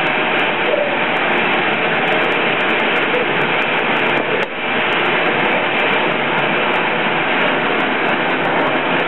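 Glassworker's bench gas torch burning with a steady rushing hiss as glass is heated in the flame, briefly dropping in level about halfway through.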